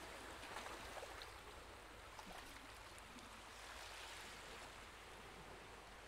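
Near silence: a faint steady hiss.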